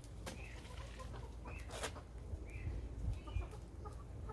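Chickens clucking softly, a few short calls spaced about a second apart, with a sharp tap near two seconds in.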